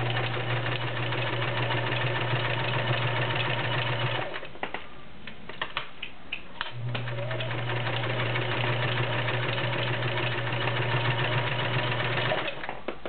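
Kenmore model 1941 sewing machine running steadily, stitching through a couple of layers of 4-ounce garment leather with a size 16 needle. It stops about four seconds in, with a few clicks, then runs again for about six seconds and stops near the end with more clicks. It sews the leather with no problems.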